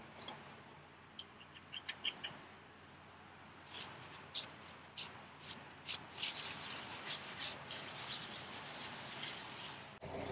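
Hands working on small metal parts: scattered light clicks and clinks, then a quicker run of ticks and rattles from about six seconds in.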